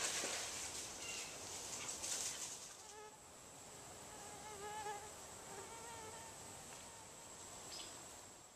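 A flying insect buzzing close by, its whine wavering up and down in pitch, from about three seconds in until near the end. Under it are a faint hiss and a thin steady high tone.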